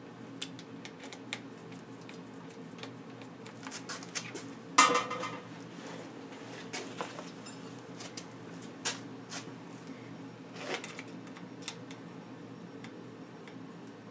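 Light metallic clicks and clinks from handlebar parts being handled and tightened on a bicycle, with one loud metal clank a little under five seconds in that rings briefly. A steady low hum runs underneath.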